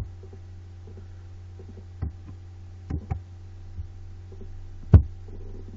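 Computer mouse clicks, about six short sharp clicks scattered through, the loudest about five seconds in, over a steady low electrical hum.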